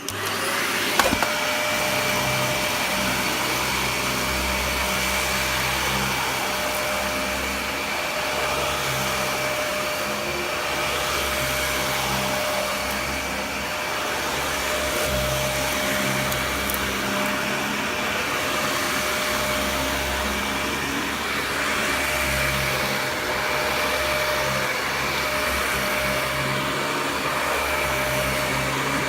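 Dyson DC41 Mk2 upright vacuum cleaner running steadily: a rush of air with two steady whining tones over it, one mid and one high. A low rumble rises and falls every second or two, and there is one sharp click about a second in.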